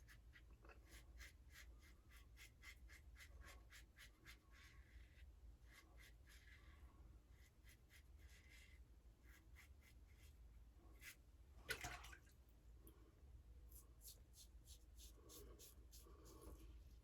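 Faint short scraping strokes of a single-edge safety razor cutting lathered stubble, a few strokes a second in runs. One brief louder sound comes about twelve seconds in.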